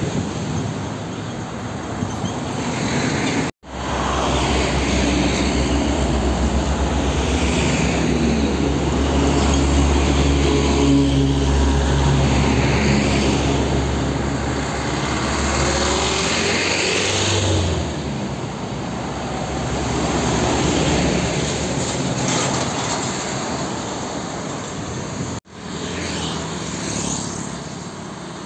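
Heavy diesel trucks passing close by on the road, their engines running low and steady with tyre and traffic noise. About halfway through, the engine pitch rises as a truck accelerates. The sound breaks off briefly twice.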